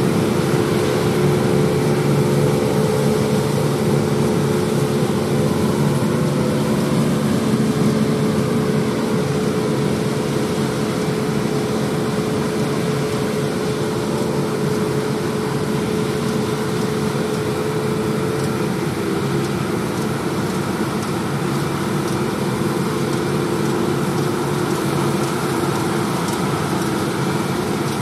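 John Deere 8R tractors pulling KMC six-row peanut pickers while harvesting: a loud, steady drone of diesel engines and the pickers' running machinery, with a steady hum that shifts slightly in pitch about two-thirds of the way through.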